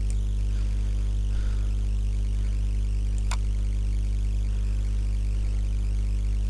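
Steady low electrical hum from the recording setup, with a single mouse click about three seconds in.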